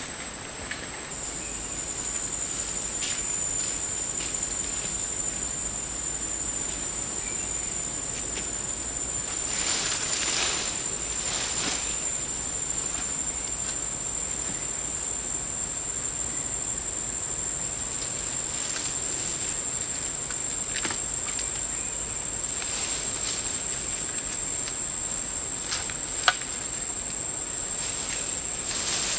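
Insects shrilling in the forest in one steady high-pitched tone, with a few brief rustles of leafy branches being handled and a single sharp snap near the end.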